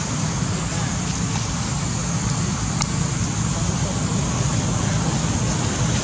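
Steady rumbling hiss of outdoor background noise, even in level throughout, with a faint tick or two near the middle.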